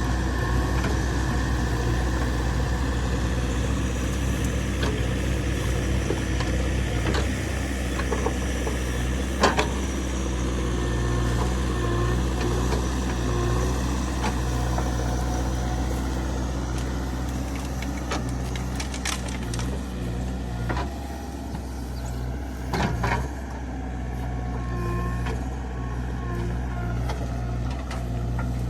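Diesel engines of a backhoe loader and tractors running steadily, with a few sharp knocks, the loudest about ten seconds in.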